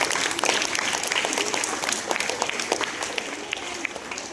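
A group of people clapping, many hands at once, slowly dying away near the end.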